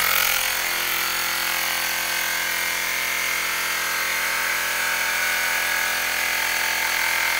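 Electric air compressor running steadily as it inflates a 10-inch scooter inner tube, seating the tyre on the rim.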